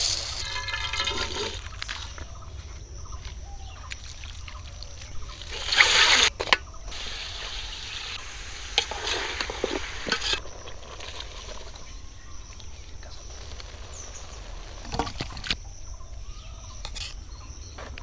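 A run of cooking sounds in short cuts: raw rice poured into a steel bowl, pouring and liquid sounds, and a metal spatula stirring and scraping in a large steel pot, with scattered clicks and knocks. A louder rush of noise comes about six seconds in.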